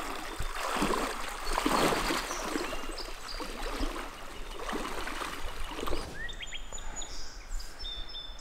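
Creek water running and splashing, uneven for about six seconds, then quieter, with small birds chirping near the end.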